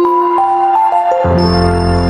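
Short logo intro jingle: a run of bright chime-like notes stepping from pitch to pitch, joined about one and a half seconds in by a deep sustained chord.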